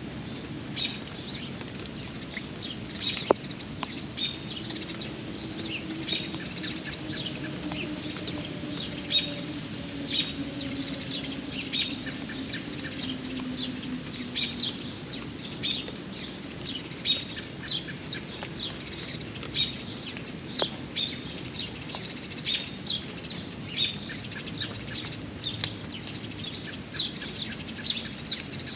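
Steady rain with a bird repeating a short high chirp over and over, about once or twice a second. A few sharp drip-like clicks, and partway through a faint low drone slowly falling in pitch.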